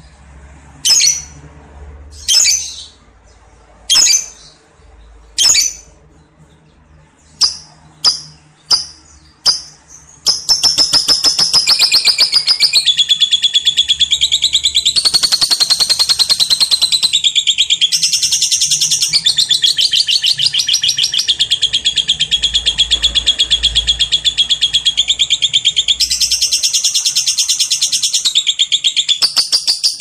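Lovebird giving single sharp high chirps about once a second, then, about ten seconds in, breaking into one long unbroken chattering trill, rapidly pulsed and shifting in pitch: the long 'ngekek' song.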